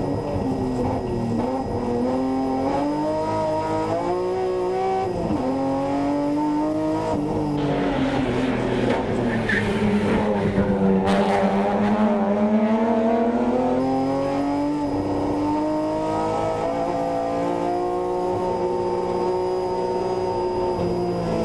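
BMW M3 race car engine under hard acceleration, its pitch repeatedly climbing and dropping with gear changes and lifts. Around eight to eleven seconds in, the revs fall low and tyres squeal as the car slides through a tight hairpin, then the engine pulls up through the revs again.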